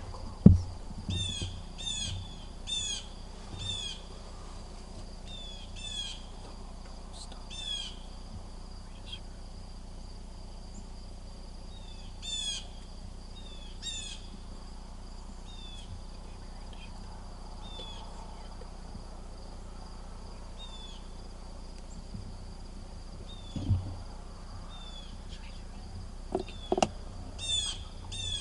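A songbird calling in short, high, downward-slurred chirps, repeated about once a second in spells near the start, in the middle and near the end, over a steady high insect drone. A few low thumps come near the start and in the last few seconds.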